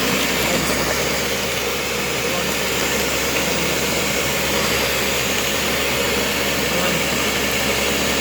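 Countertop blender running steadily, grinding a thick mix of fresh ginger, garlic, whole lemons with their seeds, and honey with no water added.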